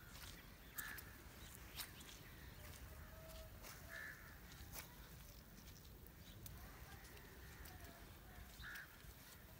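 Quiet rural ambience with three short, distant bird calls a few seconds apart, and a few faint clicks.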